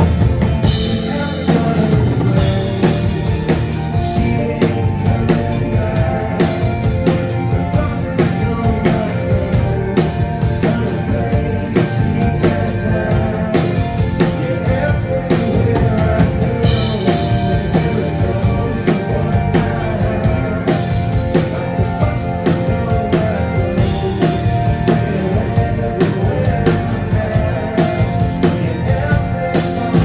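A rock band playing live through a venue PA: a drum kit keeps a steady beat under bass, guitars and keyboards.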